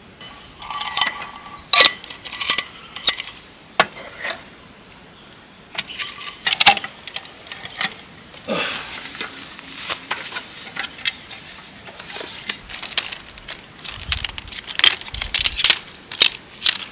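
Metal camp cookware and utensils clinking and clattering in irregular knocks. Some strikes in the first few seconds leave a brief ringing tone.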